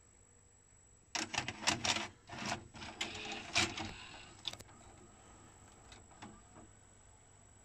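Philips VR356 VHS recorder taking in and threading a cassette: a quick series of mechanical clicks and clunks with motor whirring from about one to four seconds in, then a few single clicks, ending in a faint hum as the tape is loaded.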